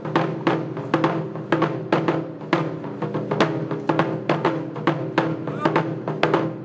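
Japanese taiko drums, barrel-shaped drums on slanted stands, struck with wooden sticks by three players in a steady rhythm of two or three strokes a second, each drum ringing on low between strokes.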